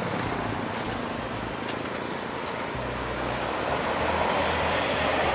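City traffic noise heard from a moving bicycle in a busy intersection, steady throughout, with a brief clatter and some faint high ringing tones about two seconds in.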